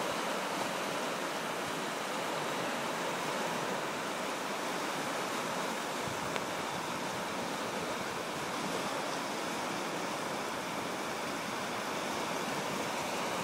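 Small waves breaking and washing up a sandy beach: a steady hiss of surf.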